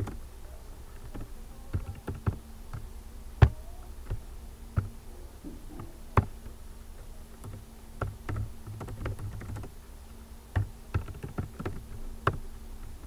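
Keystrokes on a computer keyboard: irregular typing with short pauses, a few keys struck noticeably harder than the rest.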